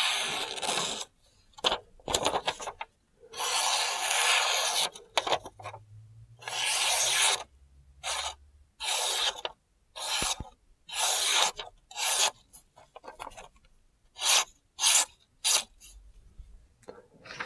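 A freshly sharpened Spyderco Shaman folding knife with a Cruwear steel blade slicing through lined notebook paper: a dozen or so hissing cuts, some long drawn slices and others short quick ones, with brief pauses between. This is a sharpness test of a toothy edge, finished on a Venev stone of about 600 grit, that bites into the paper.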